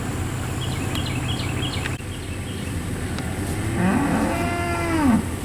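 A bovine animal mooing once, about four seconds in: one drawn-out call that rises and then falls in pitch, over a steady low hum.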